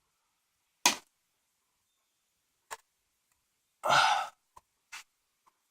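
A man's loud breathy exhale, like a sigh, about four seconds in, among a few short sharp clicks and knocks of handling.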